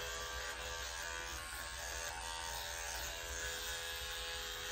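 Shernbao digital dog-grooming clipper with a 7F blade running with a steady buzz as it clips the hair around a dog's rear end.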